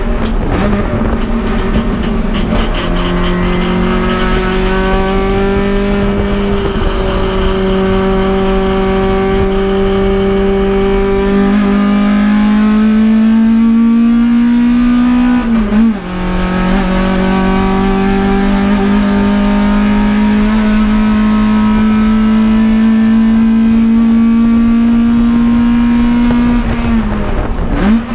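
Toyota AE86 Corolla's 4A-GE four-cylinder engine pulling hard on track, its pitch climbing slowly and steadily. The revs drop sharply about halfway through, then climb again, and drop once more near the end.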